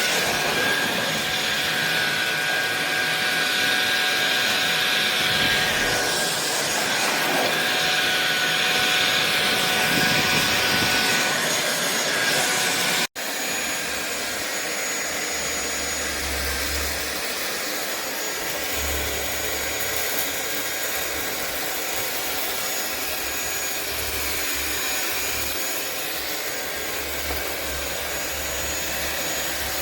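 Cordless stick vacuum cleaner running steadily with a thin high whine over its motor noise. It cuts out for an instant about halfway through, then runs on slightly quieter with a low rumble that comes and goes.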